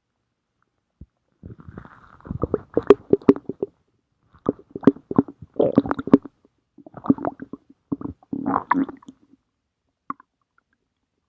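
Stomach growling and gurgling in a string of about five bursts of rapid bubbly pops, which die away about three quarters of the way in.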